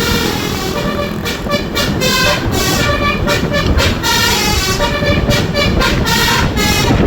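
Bus telolet horn: a multi-tone horn playing a quick series of short notes at changing pitches, again and again, over the low rumble of the bus.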